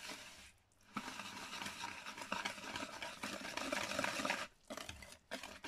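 Wire whisk stirring a thick batter of glutinous rice flour and coconut milk in a plastic bowl, a wet scraping and churning sound. It starts about a second in, breaks off briefly, and picks up again near the end.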